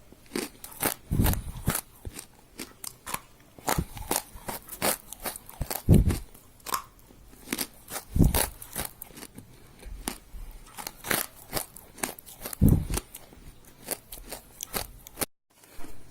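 Rose clay crunching and crumbling in dense, irregular crackles, with a few heavier, deeper crunches now and then. The sound cuts out briefly near the end.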